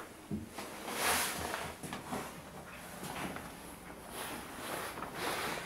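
An interior panelled door being handled and footsteps on carpet: a soft knock just after the start, a louder rustling swish about a second in, and more swishes and light knocks, another strong one near the end.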